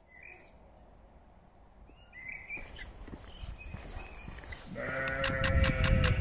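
Faint birdsong chirps, then about five seconds in a sheep bleats, one long steady baa. A quick run of ticks, about five a second, comes in with it.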